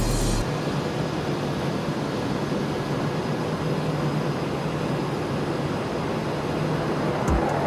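F-16 fighter jet's engine making a steady jet roar as the aircraft takes off and climbs away, growing louder near the end.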